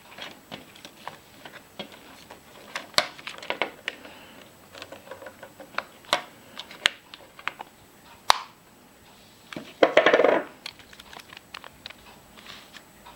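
Aluminium cigarette case being handled: a string of small clicks, taps and light metallic clatter as cigarettes are slid in and the lid is opened and closed, with a louder rattling scrape about ten seconds in.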